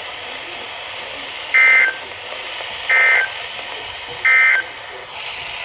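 NOAA Weather Radio SAME end-of-message data bursts: three short bursts of two-tone digital data about 1.4 seconds apart over steady radio hiss. They signal the end of a severe thunderstorm warning message. The hiss cuts off suddenly at the very end.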